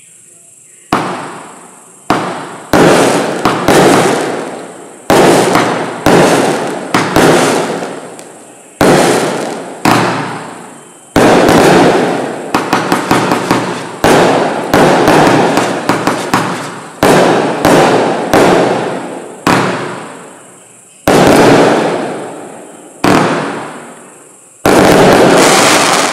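Bright Star Xtreme Remedy 30-shot barrage firework cake firing shot after shot, starting about a second in: loud bangs coming roughly one a second, each fading away, with a fast run of smaller pops about halfway through.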